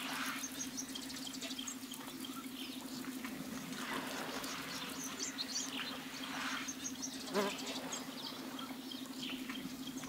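Waterhole ambience around drinking elephants: light splashing and sloshing of water, with scattered bird chirps over a steady low hum. The loudest splash comes about seven seconds in.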